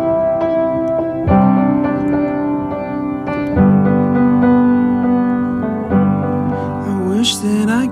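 Background music: a song's piano intro, sustained keyboard chords changing every second or two.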